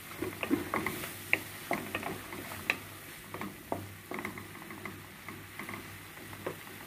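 Wooden spoon stirring and mashing banana pieces frying in an aluminium kadai: irregular taps and scrapes of the spoon against the pan, thicker in the first three seconds and sparser after, over a faint sizzle.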